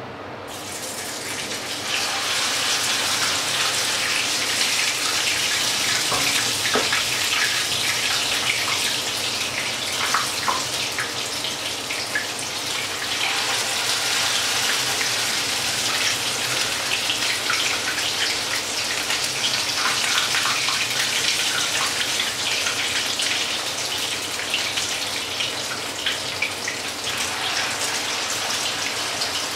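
Hot fat sizzling and crackling in a frying pan as spoonfuls of batter fry. The sizzle swells in the first couple of seconds and then holds steady.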